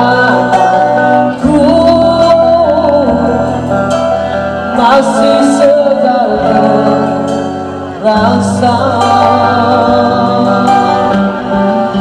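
A woman singing a 1980s Malay rock song into a microphone over a karaoke backing track, holding long notes with vibrato above steady bass and chord changes.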